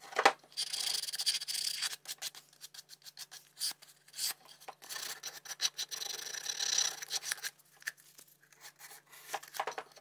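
Sandpaper rubbed by hand over the hardwood caddy: scratchy strokes of one to three seconds with pauses between, broken by small clicks. A sharp knock right at the start is the loudest sound.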